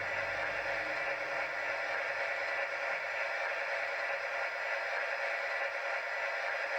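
Sound decoder of a Bachmann OO gauge Class 70 model locomotive playing its diesel engine running sound through the model's small speaker, a steady hissy drone.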